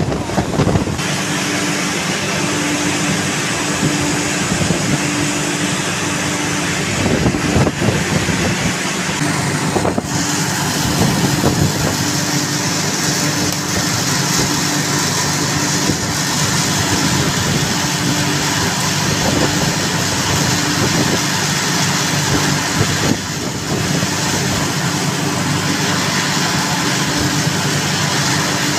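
Steady drone of running machinery with a low hum, with a few brief knocks and rustles around the middle.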